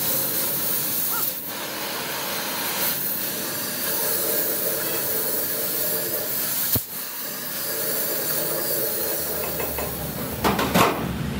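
Oxy-fuel cutting torch hissing steadily as its flame cuts through the steel axle flange, with a short louder rush of noise near the end.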